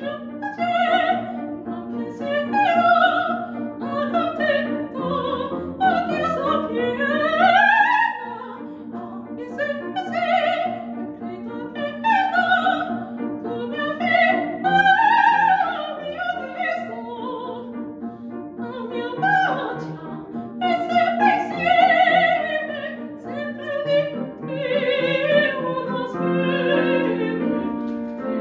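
Operatic soprano singing an aria in full voice, holding long notes with vibrato, accompanied by piano.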